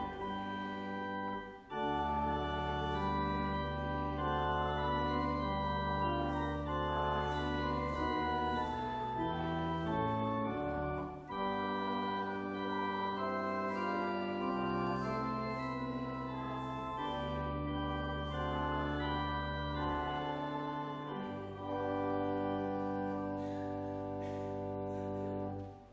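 Church organ playing a hymn in sustained full chords over a steady bass line, changing chords every second or two, and stopping abruptly near the end.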